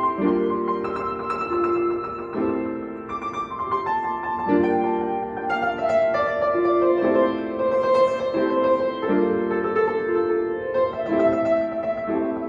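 Piano playing an arrangement of a Christmas piece: full chords held in the middle register, changing every second or two, under a higher melody line.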